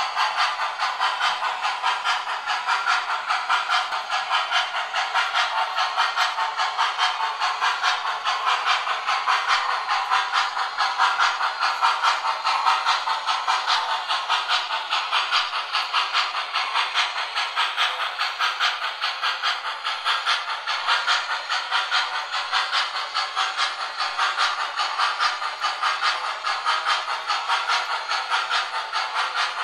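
A pair of MTH model steam locomotives running with their built-in sound systems: a steady, quick rhythm of steam chuffs with hiss. The sound is thin, with no deep bass.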